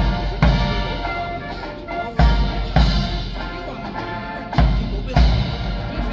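Slow ceremonial band music with held notes, marked by heavy bass drum strokes that fall in pairs about half a second apart, each pair some two seconds after the last.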